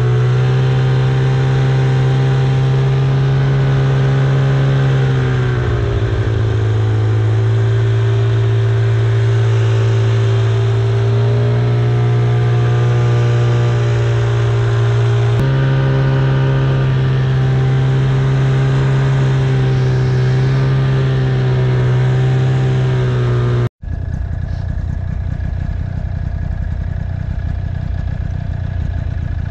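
Snowmobile engine running steadily under load through deep snow, a droning note that drops in pitch about six seconds in and rises again about fifteen seconds in. After a sudden break near the end, a rougher, lower engine noise carries on.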